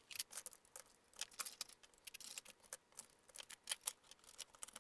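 Plastic and metal parts of a ThinkPad Z61t laptop clicking and rattling as they are handled and lifted apart: a run of light, irregular clicks and taps.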